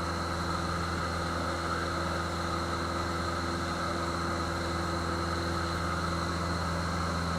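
Steady drone of a Cessna 150F's Continental O-200 four-cylinder engine and propeller heard from inside the cockpit, an even hum that holds the same pitch and level throughout.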